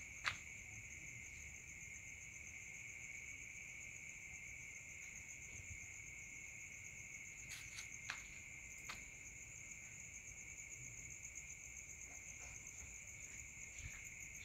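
Steady high-pitched trilling of night insects at two pitches, one higher than the other. A few short clicks and taps sound over it, the sharpest about a third of a second in and a small cluster around eight to nine seconds in.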